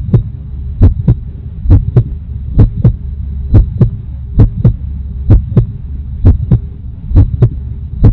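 Heartbeat sound effect: deep double thumps repeating a little under once a second over a steady low hum.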